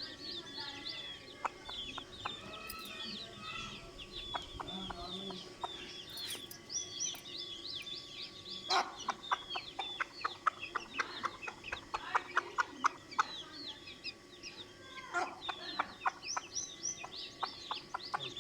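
A mother hen clucking to her chicks in quick runs of short clucks, strongest in the middle and again near the end, over the continuous high peeping of baby chicks.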